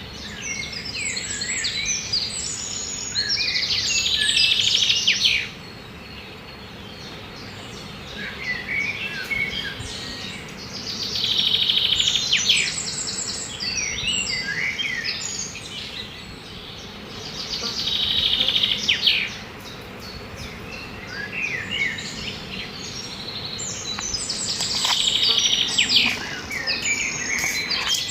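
Birds singing in bouts of quick high chirps and trills, four bouts of a few seconds each with short pauses between them.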